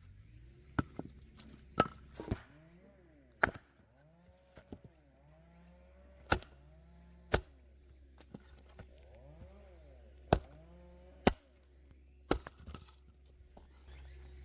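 Firewood being chopped: about nine sharp wooden knocks at irregular intervals, some a second apart, over a faint low hum.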